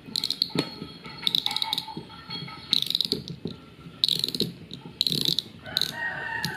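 Homemade line winder, a small DC motor spinning a plastic bottle, pulling braided PE line off an Okuma Altera spinning reel: a light motor whine with repeated bursts of ratcheting clicks about once a second, and a tone rising near the end.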